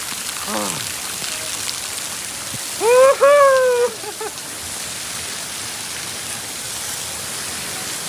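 Spray from a waterfall falling like fine, heavy rain onto rocks, a steady hiss. About three seconds in, a person's voice calls out loudly for about a second.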